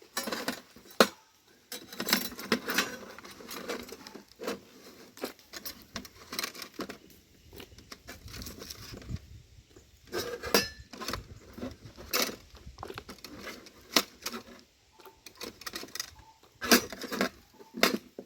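Kitchen work sounds: irregular clinks and knocks of utensils against dishes and pans, with rustling handling between them.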